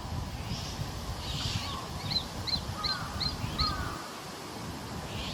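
Juvenile Japanese sparrowhawk calling: a couple of hoarse, rasping calls, then a quick run of five short, sharp high notes.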